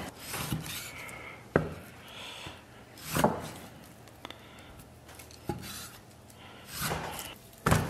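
Chinese cleaver cutting raw pork belly into chunks on an end-grain wooden chopping block: the blade slices through the fat and meat and lands on the wood in a few sharp, irregular knocks a second or two apart.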